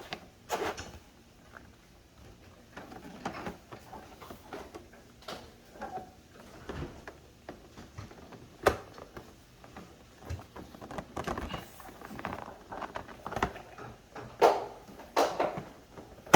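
Plastic armrest and door-handle trim being worked and pressed into a car's interior door panel, with scattered knocks and clicks as its clips are pushed home. There is one sharp snap about halfway through and two louder knocks near the end.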